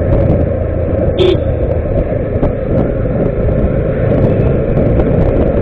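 Motorcycle under way: its engine running steadily under a low rumble of road and wind noise, with one short beep about a second in.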